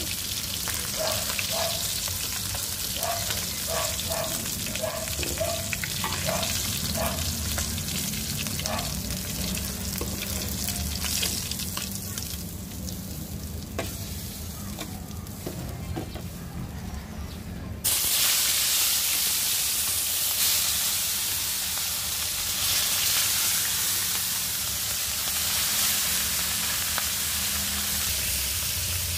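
Whole fish frying in hot oil in a wok, a steady sizzle. About eighteen seconds in the sizzle jumps suddenly louder and brighter as a fresh batch of fish goes into the oil, and it stays loud.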